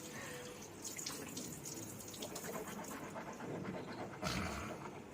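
Faint scratchy scrubbing of a toothbrush with breathing, and a short louder breath about four seconds in.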